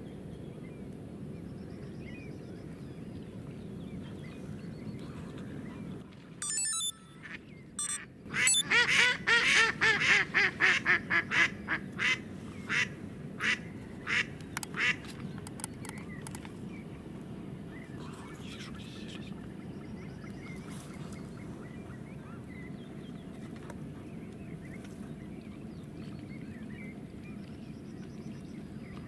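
Live decoy hen duck calling: a long series of loud quacks, quick at first, then slowing and fading, the call used to draw in drakes. A brief rustling noise comes just before it.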